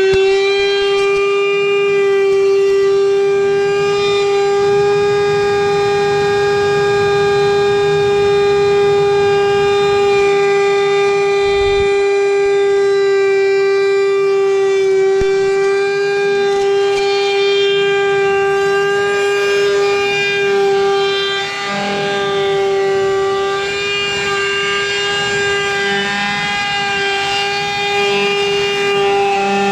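Wood router with a bearing-guided flush-trim bit running at full speed, trimming plywood flush to a template: a loud, steady whine at one pitch. The level dips briefly about two-thirds of the way through as the cut loads it.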